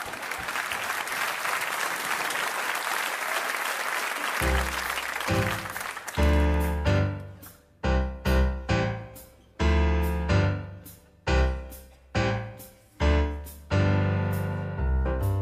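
Audience applauding for about four seconds, then a piano starts playing a series of loud, separate chords, each struck sharply and dying away before the next, about a dozen in all.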